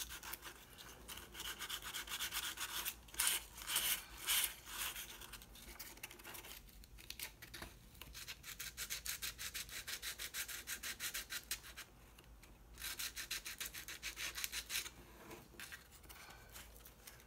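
Sanding a dried wood-filler patch on a sculpture: quick rubbing strokes, about five a second, in runs broken by short pauses.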